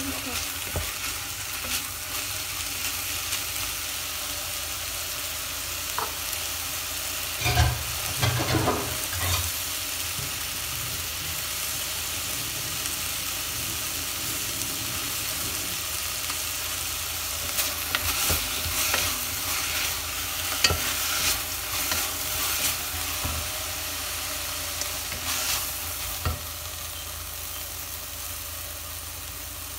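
Beef and green beans sizzling in a metal pot, stirred with a wooden spatula. The spatula scrapes and knocks against the pot in bunches about eight seconds in and again from about eighteen to twenty-six seconds in, over a steady frying hiss.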